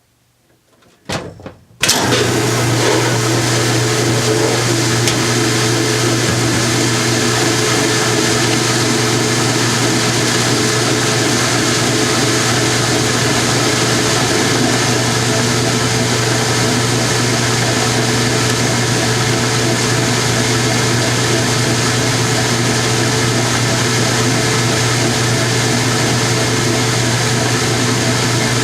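A washing machine running with its cabinet removed: after a click or two, its motor starts about two seconds in and runs steadily with a strong low hum.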